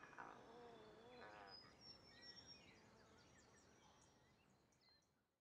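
Faint outdoor ambience: a short call with a wavering pitch, then scattered high bird chirps, the whole fading out to silence at the end.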